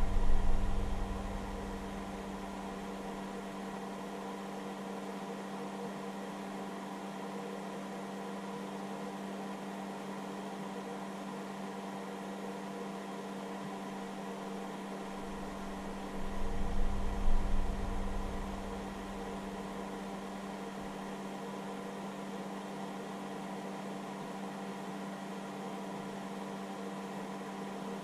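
Hobby battery charger's cooling fan running with a steady hum of several pitches over a hiss, while the charger discharges a Ryobi 18V battery at about 5 A. A low rumble fades out in the first couple of seconds and comes back, louder, for a few seconds just past halfway.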